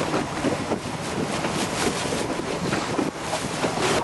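Wind buffeting a camcorder microphone on a boat over choppy sea, a loud, uneven rushing with waves lapping underneath.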